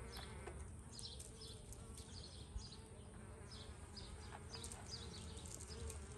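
Honey bees buzzing around an opened brood comb, a steady hum that wavers in pitch as bees fly close by.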